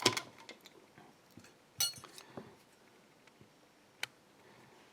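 Small metal lock pins and tools clinking lightly as they are handled: a few scattered clicks, a louder one about two seconds in and a sharp one about four seconds in.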